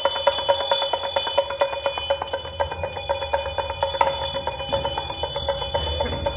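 Music with rapidly jingling bells over sustained ringing tones, in a quick, steady rhythm.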